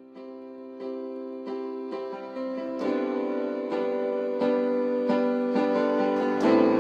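Instrumental music intro: plucked or keyboard notes struck about every two-thirds of a second over a sustained chord, growing steadily louder.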